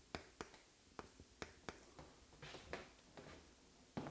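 Faint taps and scratches of chalk on a chalkboard as a word is written: a run of short, sharp taps, a few longer scratchy strokes a little past halfway, and a firmer tap near the end.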